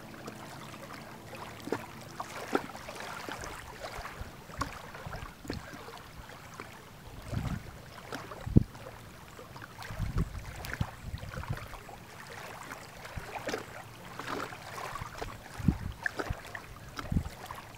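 Small wind-driven waves lapping and washing over a pebble shoreline, in irregular splashes. Wind gusts buffet the microphone now and then with low thumps, the strongest about eight and a half seconds in.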